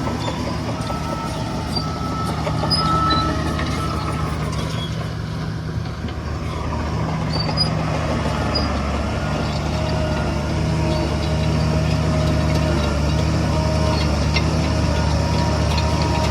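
Heavy diesel earth-moving machinery, dump trucks and bulldozers, running steadily with a deep engine drone that rises slightly in level about halfway through.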